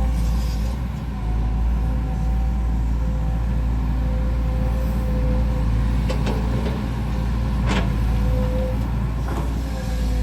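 Volvo EC210D excavator working: its diesel engine runs steadily under load with a faint hydraulic whine, and a short metallic knock of the bucket comes about three-quarters of the way through.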